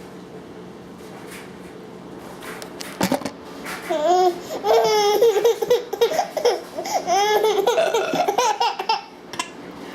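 A baby laughing: a run of high-pitched laughs from about four seconds in until near the end, after a short knock at about three seconds.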